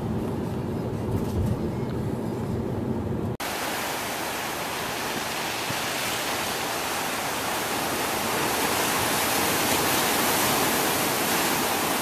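Low road rumble of a moving car, which cuts off about three seconds in. A steady rushing noise of surf and wind on the microphone follows and grows slightly louder near the end.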